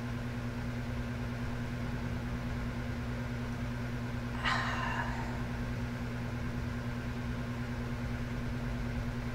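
A steady low mechanical hum, with a brief soft rush of noise about four and a half seconds in.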